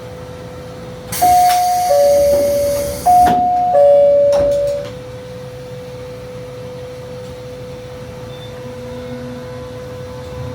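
Two-tone electronic chime inside a train, a high note then a lower one, sounded twice in quick succession, each note fading out. A hiss runs under the first pair, and a faint steady tone continues underneath.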